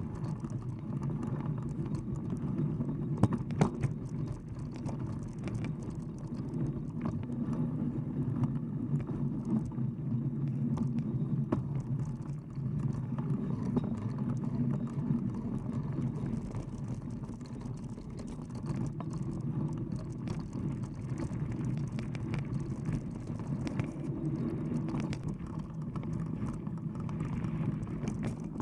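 Knobby mountain bike tyre rolling over a dirt trail, a steady rumbling with scattered rattles and knocks from the bike over bumps, picked up by a camera mounted by the front wheel.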